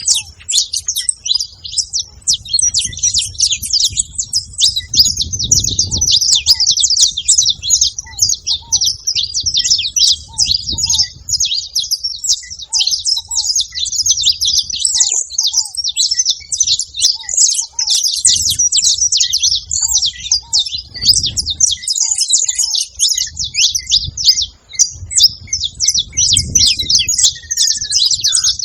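Saffron finches chirping and singing without a break, a dense, fast run of high, quick notes.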